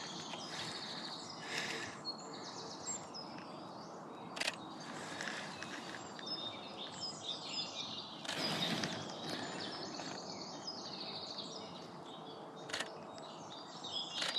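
Several birds chirping and singing over a steady outdoor background hiss, with two sharp clicks and a brief rustle about eight seconds in.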